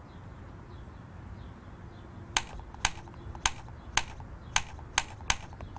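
Stylus taps on the Apple Newton MessagePad's on-screen keyboard as a word is typed letter by letter: about eight sharp clicks, roughly two a second, starting a little over two seconds in, over a faint steady hum.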